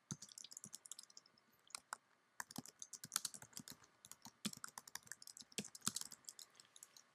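Typing on a computer keyboard: a quick, uneven run of key clicks, with a short pause about two seconds in.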